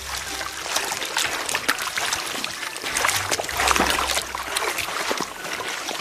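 Water splashing and trickling: a dense, irregular patter of small splashes.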